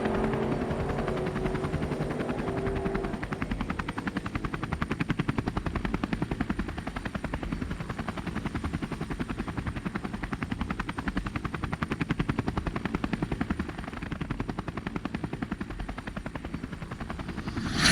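An engine idling with a rapid, even pulse. Its higher note from a rev dies away over the first few seconds.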